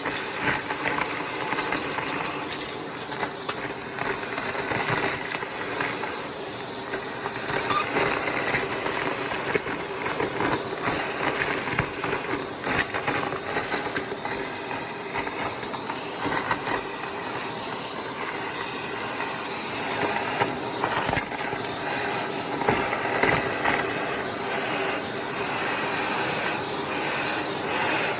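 Vacuum cleaner running with its crevice tool, a steady motor hum under scattered crackling as crunchy debris is sucked up through the nozzle.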